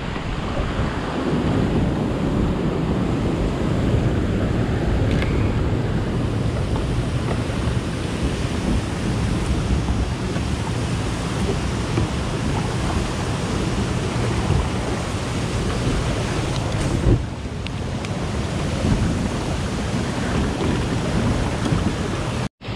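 Steady rushing roar of turbulent water churned up by the dam's generator discharge, mixed with wind on the microphone. A single knock comes about 17 seconds in.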